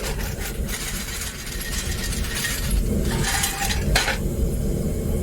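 Cut-up scrap copper pieces clinking and clattering for about four seconds, then stopping, over the steady low rumble of a propane furnace burner.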